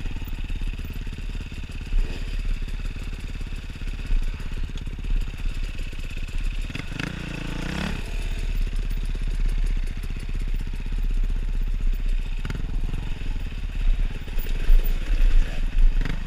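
Kawasaki dirt bike engine running while being ridden, heard from a helmet-mounted camera, with other dirt bikes running close by. The engine pitch rises and falls briefly about seven seconds in.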